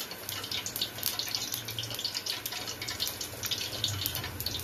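Breaded potato-and-cheese stuffed bread sandwiches frying in hot oil: a dense, steady crackling sizzle, over a low hum.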